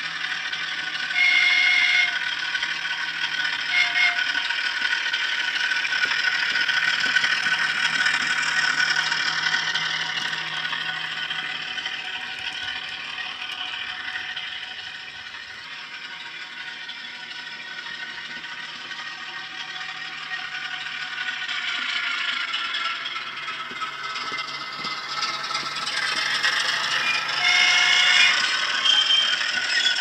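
Hornby HM7000 sound decoder playing a Class 08 diesel shunter's engine through a model shunter's small speaker: the engine runs with a steady hum and rattle, mixed with the clatter of the model's wheels and wagons on the track. It fades through the middle and grows louder again near the end, and brief steady tones sound about a second in, near four seconds, and twice near the end.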